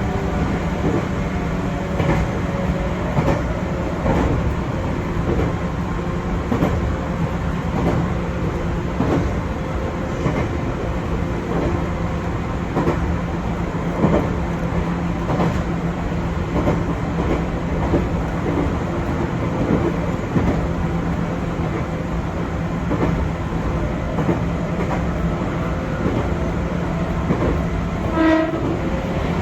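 Chichibu Railway 6000 series electric train running, heard from inside the carriage: a steady running rumble and hum, with irregular clicks and knocks from the wheels over the rails. A brief pitched tone sounds near the end.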